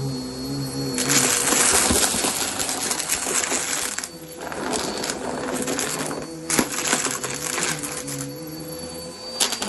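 Vacuum cleaner running over a rug, its motor whining steadily under a low hum that wavers in pitch. The hiss and rattle of suction rises in three long surges as the vacuum is pushed along, with a sharp click near the end.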